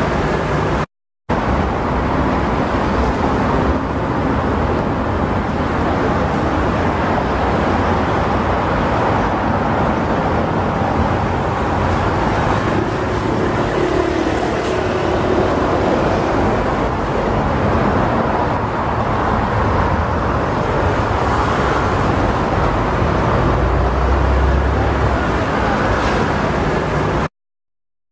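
Steady airport apron noise: the even rumble and hiss of airliner jet engines, cutting out briefly twice, about a second in and near the end.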